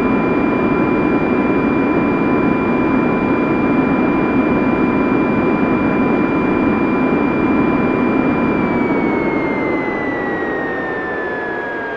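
Aircraft engines in flight: a steady high whine over a dense rumble. About two-thirds of the way through, the whine slides down in pitch and the sound begins to fade, as the aircraft passes.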